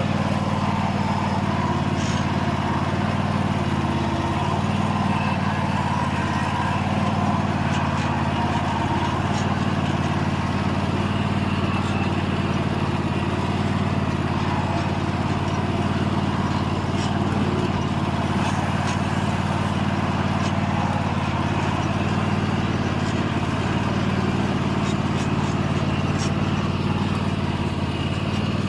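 Lawn mower engine running steadily at constant speed, with no change in pitch or level.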